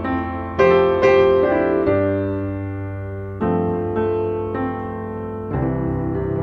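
Background music: piano chords struck a few times and left to ring and fade, over a steady low bass note.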